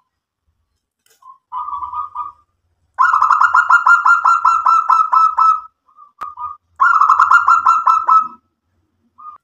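Zebra dove (local perkutut) cooing: a short call, then two long runs of rapid staccato coos, each two or three seconds long, with a brief note between them.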